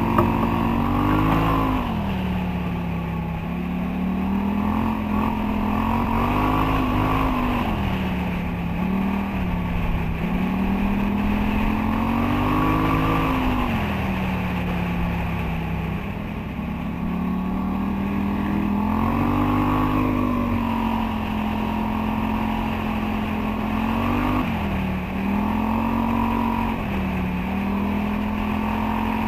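Polaris quad's engine running along a dirt trail. Its pitch rises and falls in slow waves every few seconds as the throttle is opened and eased, and it holds steadier over the last several seconds.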